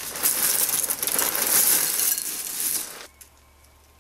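Kellogg's Raisin Bran Crunch flakes pouring from the box's plastic liner into a ceramic bowl, a dense rush of small impacts that stops abruptly about three seconds in.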